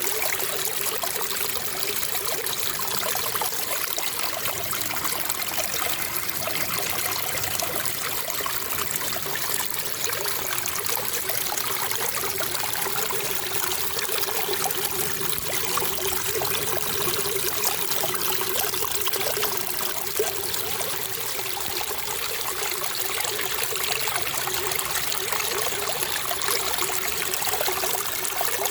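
Running water trickling steadily, an even rushing splash with no pauses or changes.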